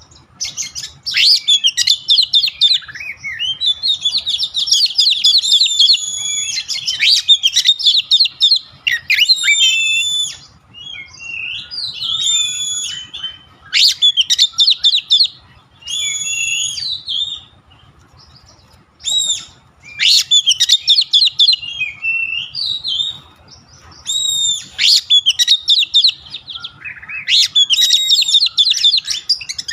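Oriental magpie-robin singing: loud, varied song phrases of rapid trills and whistled notes, broken by short pauses, with a longer lull about two-thirds of the way through.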